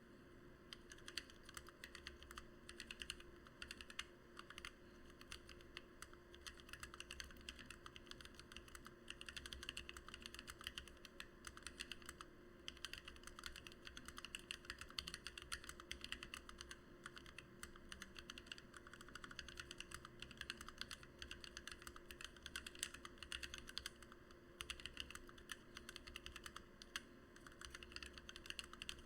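Fast, continuous typing on a Lily58 split mechanical keyboard with lubed and filmed Gateron Black Ink V2 linear switches, PBT OEM-profile blank keycaps and an acrylic plate, with a couple of brief pauses.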